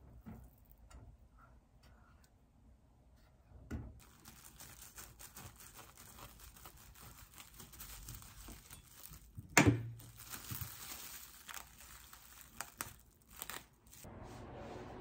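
Kitchen knife sawing through a sandwich wrapped in plastic cling film: the film crinkles and crackles for about ten seconds, with one sharp knock of the blade on the wooden cutting board near the end.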